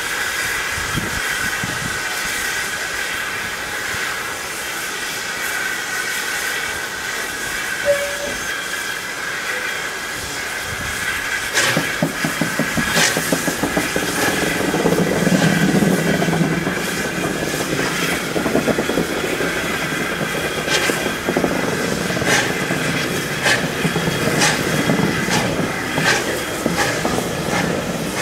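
Steam tank locomotive hauling passenger carriages. For about the first eleven seconds steam hisses steadily; from about twelve seconds in, repeated exhaust beats and sharp clicks of wheels over rail joints come in as the train gets moving.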